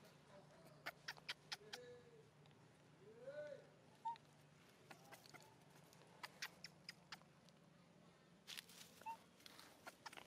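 A few faint, short squeaks from a young monkey, mixed with scattered crackles and clicks of dry leaves and litter as monkeys move over the ground.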